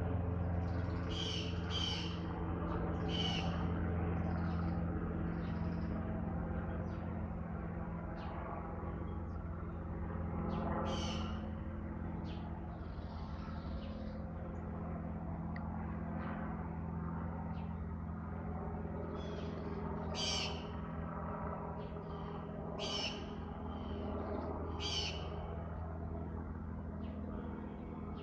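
Steady low drone of an aircraft flying high overhead, with short bird chirps every few seconds.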